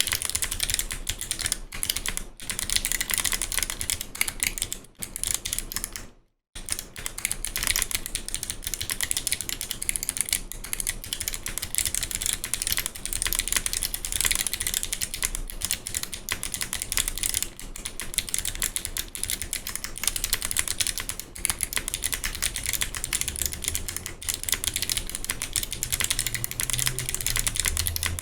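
Continuous fast typing on a mechanical keyboard with Kailh Box Navy clicky switches and GMK keycaps: a dense stream of thick, crisp clicks, with a brief stop about six seconds in.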